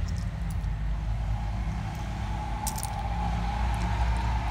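A steady low rumble, with a faint steady hum coming in about a second in, and a few sharp clicks of small clam shells as a hand picks through them in a plastic bowl.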